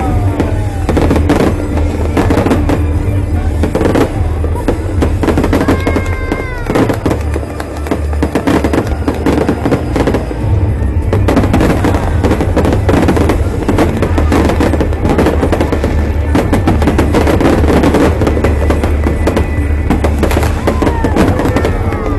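Fireworks going off in a rapid, continuous run of bangs and crackles, with a brief falling whistle about six seconds in. Music plays underneath.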